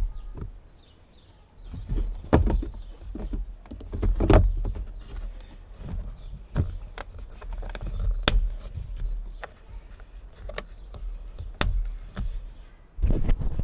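Handling noise from work on a car's plastic engine air-filter box: irregular clicks and knocks with a few heavier thuds, as the lid, clips and filter are moved.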